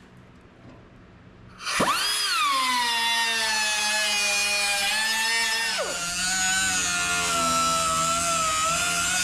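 Handheld power tool starting up about two seconds in, its whine sweeping up sharply and then settling into a steady run. The pitch dips briefly near six seconds in before it carries on running.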